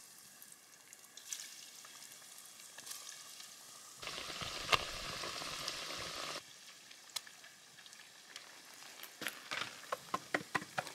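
Crumbed fish fillets and calamari deep-frying in hot oil in a cast iron pot, a steady sizzle that grows louder for a couple of seconds midway. Near the end come a run of sharp clicks and pops.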